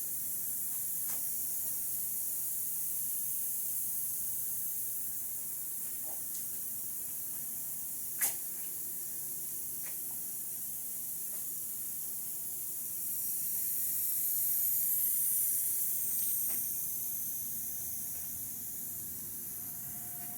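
Steady high-pitched hiss with a faint steady hum under it, a single sharp click about eight seconds in, and the hiss swelling for a few seconds past the halfway point.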